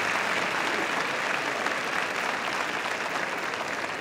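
Crowd of spectators in the stands applauding a run-scoring hit, a dense steady clapping that slowly eases off.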